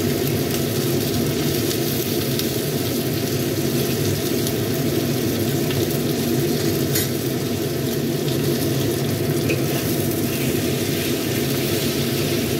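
Chicken pieces sizzling and crackling in hot oil in a wok as they are browned, with a metal spatula now and then scraping and clicking against the wok as the pieces are turned.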